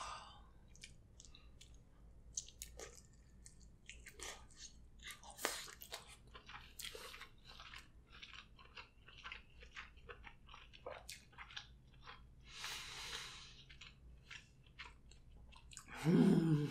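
A person chewing soft, saucy seafood, with many small wet mouth clicks and lip smacks. A brief bit of voice comes near the end.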